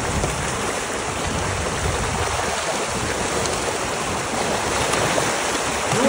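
Shallow river water rushing steadily over stones, churned by a dense run of salmon splashing at the surface as they swim upstream to spawn.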